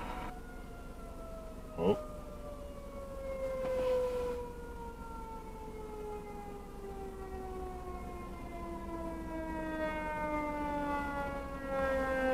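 Fire truck siren winding down, its pitch falling slowly and steadily as it coasts to a stop. About two seconds in there is a brief, sharp rising whoop.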